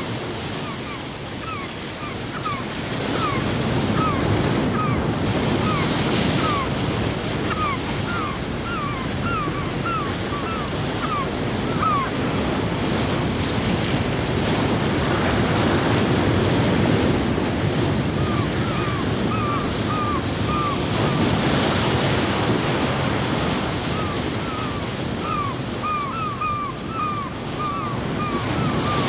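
Ocean surf washing steadily, with wind, under a repeated short chirping call about twice a second that runs for the first dozen seconds, stops, and comes back from about eighteen seconds in.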